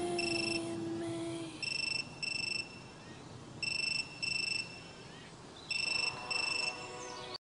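Mobile phone ringing with a double electronic beep, one pair about every two seconds, four pairs in all. Under the first pair a low held tone stops about a second and a half in.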